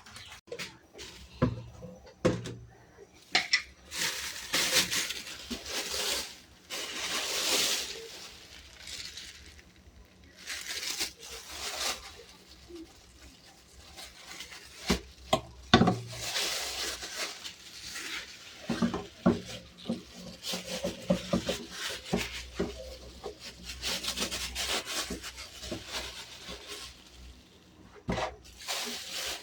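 Hand scrubbing or wiping strokes in bursts of a few seconds, with scattered knocks and light clatter of household items being picked up and set down, typical of cleaning by hand.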